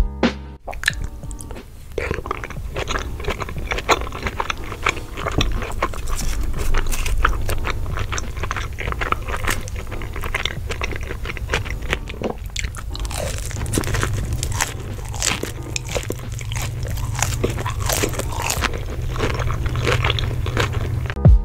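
Close-up mouth sounds of a person eating tteokbokki and fried seaweed rolls: dense, irregular crunching and chewing.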